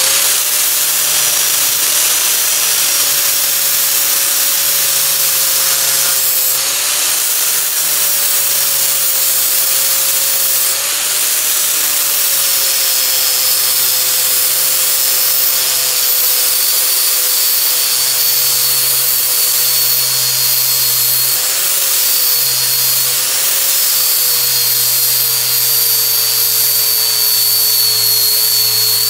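Angle grinder with a flap disc grinding a butt weld bead down flush on steel plate: the motor runs with a steady whine that wavers slightly in pitch as the disc bears on the metal, over the rasp of the abrasive on steel.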